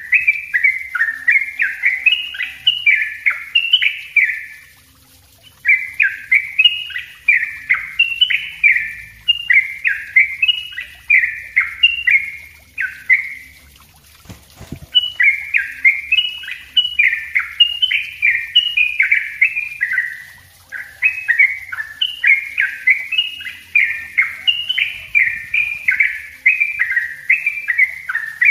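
Yellow-vented bulbul singing a rapid, tightly packed run of bubbly chirping notes, several a second (the 'ropel rapat' song style), broken by two short pauses, about five seconds in and near the middle.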